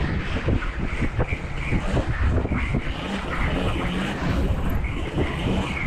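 Wind buffeting the microphone over the rumble of an electric bike's tyres rolling on a paved path, with many small knocks and rattles from the bike.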